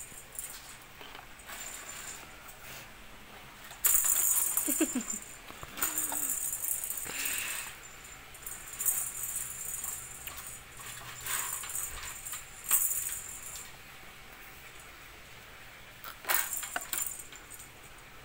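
Plastic ball-track cat toy rattling and clattering in uneven bursts as a kitten bats at it, with a short falling tone about five seconds in.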